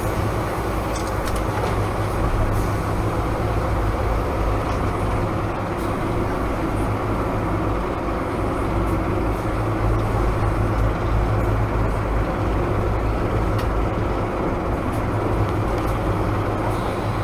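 Jet boat's engines running steadily through the river rapids, a loud continuous drone with a low hum under a wash of rushing noise.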